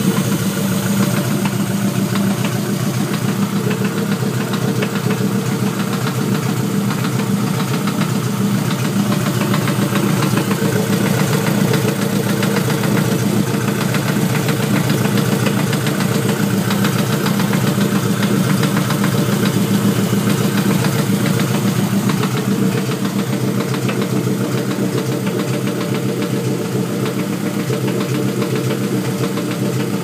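Honda LS/VTEC hybrid four-cylinder engine idling steadily with a fast, regular knock in time with the engine, which the owner suspects is rod knock but is not sure.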